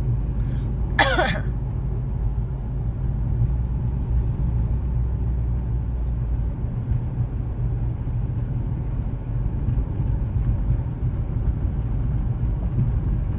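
Toyota RAV4 on the move, heard from inside the cabin: a steady low rumble of engine and road noise.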